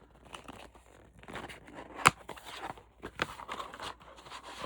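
Packaging rustling and crinkling as a pack of stencils is handled and the stencils are pulled off, with one sharp snap about two seconds in.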